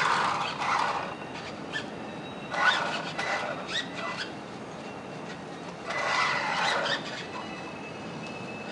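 Small electric RC car driving in three short spurts of about a second each, its motor and gears whining and its wheels rubbing on the floor.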